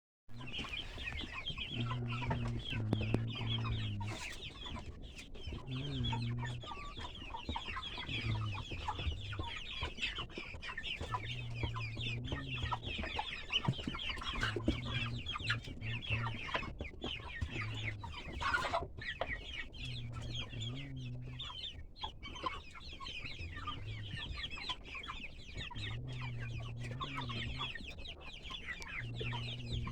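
A large flock of chickens calling and clucking at once, a dense continuous chatter, with low drawn-out sounds about a second long every couple of seconds.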